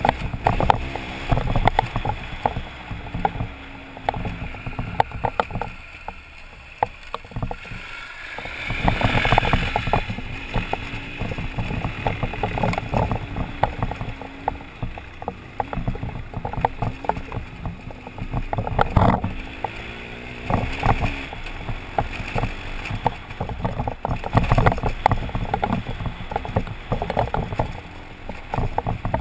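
BMW adventure motorcycle ridden over a rocky dirt road, heard from a helmet camera: the engine runs under wind buffeting on the microphone, with frequent knocks and rattles as the bike jolts over stones.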